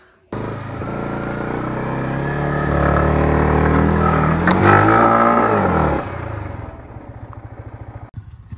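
Motorcycle engine revving hard under load, its pitch climbing for several seconds and then falling away about six seconds in to a quieter, pulsing low-speed run.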